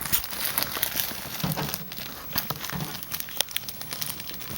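Rustling and crinkling with many light, scattered clicks, like plastic or paper being handled while crickets are put in for a leopard gecko to eat.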